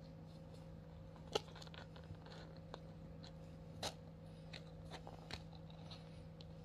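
Kittens scrabbling at a plastic litter box of pellet litter: scattered small clicks and crunches of claws and pellets, the sharpest about a second and a half in, over a faint steady hum.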